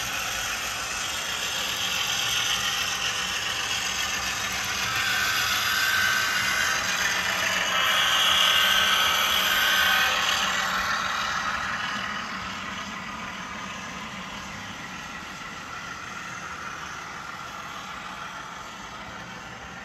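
HO-scale Bowser Alco RS-3 model diesel locomotive running, its motor and gears whirring while the factory LokSound 5 decoder plays diesel engine sound. It grows louder toward the middle, peaks about halfway, then fades as it moves away.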